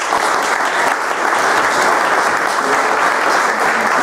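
A small crowd applauding, steady sustained clapping in a large room.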